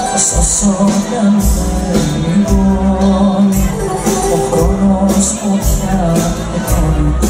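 Live Greek band playing loud over a steady drum beat with cymbals, and a woman singing into a microphone over it, heard from among the audience.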